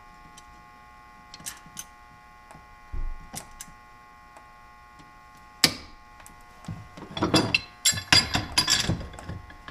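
Hand tools knocking against a rusted metal bracket: scattered light clicks, a sharp click about halfway through, then a busy run of clanking and rattling over the last few seconds, over a faint steady hum.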